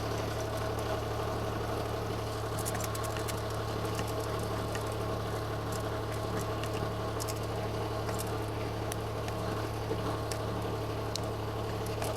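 Diesel engine idling steadily, with scattered light clicks and taps over it from work on the grease fittings.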